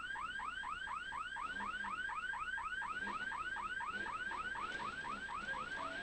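Electronic alarm sounding a fast, repeated rising chirp, about five or six a second, each chirp sweeping up in pitch.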